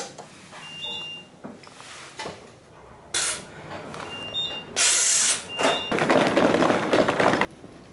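Passenger elevator: a button click, then three short high electronic beeps a few seconds apart, with loud bursts of rushing noise in the second half that stop abruptly near the end.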